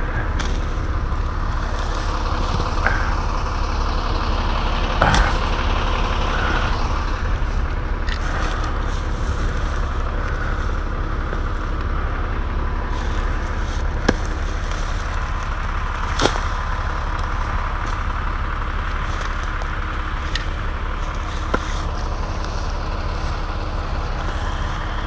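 An engine idling steadily with a heavy low rumble. Sharp knocks sound now and then over it, about half a dozen in all.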